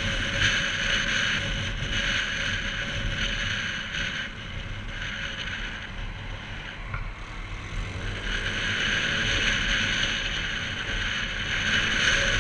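Riding noise from a motorbike: wind rushing over the onboard camera's microphone, with engine and road rumble underneath. It eases off about four seconds in and builds again from about eight seconds, as the bike picks up speed.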